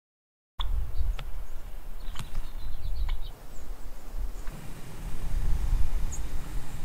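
Wind rumbling on the microphone in open brush country, stronger in the second half. A few short, sharp bird calls come between about one and three seconds in.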